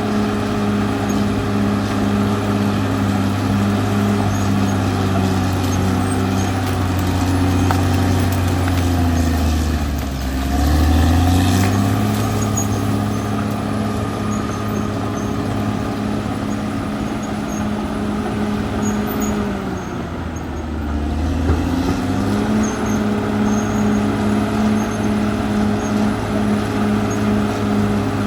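Caterpillar D6R XL bulldozer's diesel engine running steadily. Its note drops and comes back up twice, about ten seconds in and again about twenty seconds in.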